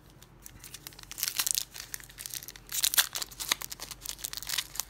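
Foil wrapper of a 2015 Panini Prizm football card pack crinkling and tearing as it is pulled open by hand. It starts about a second in, with sharper crackles around the middle.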